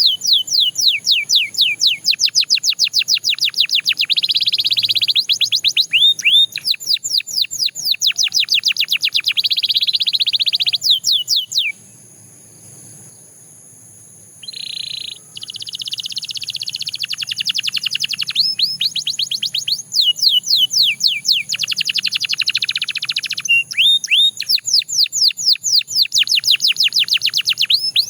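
Domestic canary singing a long song: runs of rapid, evenly repeated down-slurred whistled notes alternating with fast buzzing rolls. The song breaks off for about two seconds roughly twelve seconds in, then resumes.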